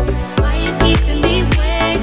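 Background music with a steady beat and a strong bass.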